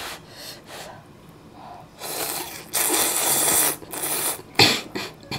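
A person slurping spicy Neoguri instant ramen noodles, loudest for about a second midway. Then two short coughs near the end from choking on the spicy food.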